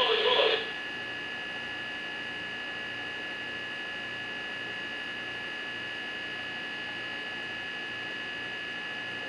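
Steady electrical hum with several high, steady whining tones, unchanging in level and pitch.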